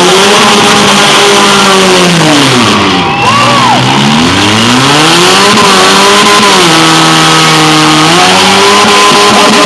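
Demolition derby cars' engines revving hard, the pitch climbing and falling again about three times, over a steady noisy din.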